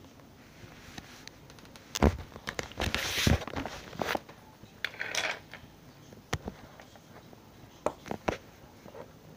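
Handling noise: a string of knocks, clicks and rustles as things are moved about on a table, with a sharp bang about two seconds in as the loudest sound and stretches of rustling around three and five seconds.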